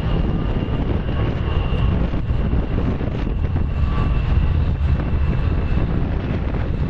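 Two A-10 Thunderbolt IIs' General Electric TF34 turbofans running on the runway, a steady high whine over a loud low rumble. Wind buffets the microphone.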